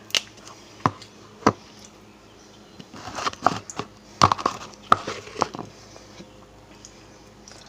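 Sharp clicks and taps of hard objects being handled: three single taps in the first second and a half, then a quick cluster of clicks and knocks about three to five and a half seconds in.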